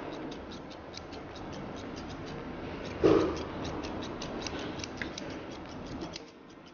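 Fast, even ticking, about five ticks a second, over soft handling noise, with one louder knock about three seconds in.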